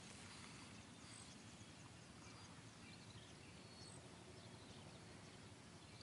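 Near silence: faint outdoor ambience with a few faint, distant bird chirps.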